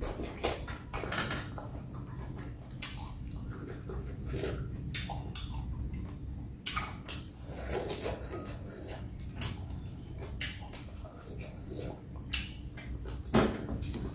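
Close-up eating sounds of a person eating rice noodle soup with chopsticks: scattered chewing and slurping with light clicks of chopsticks against a glass bowl, one louder sound near the end, over a steady low hum.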